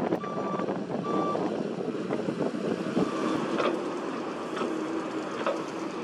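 Komatsu PC78US mini excavator's diesel engine running steadily under work, with its travel alarm beeping twice in the first second and a half. Several sharp clanks and knocks of the machine at work follow later on.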